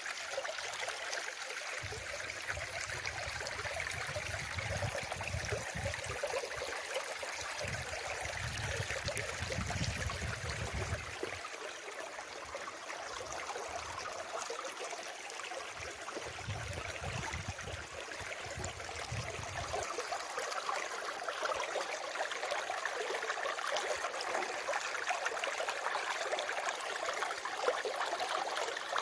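Water running steadily with a rushing, trickling sound, like a small stream. A low rumble comes and goes under it during the first two-thirds.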